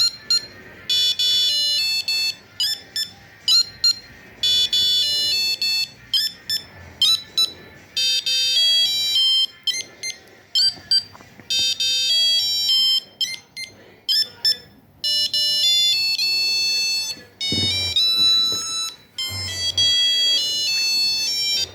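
Nokia 2100 mobile phone playing a ringtone melody: a quick run of short beeping notes sounded one at a time, stepping up and down in pitch, with brief pauses between phrases.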